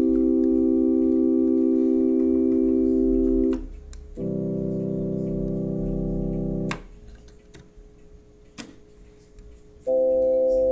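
Lowrey GA-K electronic organ playing held chords with steady, unwavering pitch: one chord cuts off about three and a half seconds in, a lower, fuller chord sounds for about two and a half seconds, then a few seconds of faint key clicks before another chord starts near the end.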